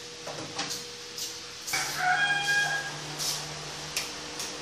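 A single drawn-out animal call lasting about a second, beginning a little before the middle, with several light knocks and clicks of objects being handled.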